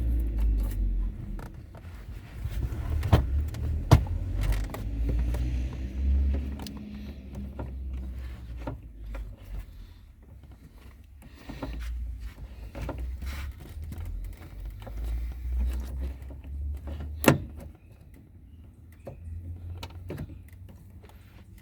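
Scattered clicks and knocks of a Phillips screwdriver and plastic door-trim parts being worked loose from a car door, with a sharp click about four seconds in and a louder one near the end, over a low rumble that fades in the second half.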